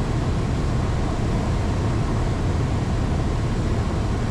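Steady in-flight cabin drone of a Cessna 172's engine and propeller, an even rush with a low hum underneath.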